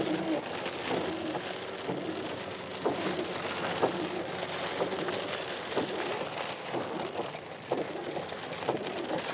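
Heavy rain falling steadily during a thunderstorm, drops pattering on surfaces, with short low tones mixed in.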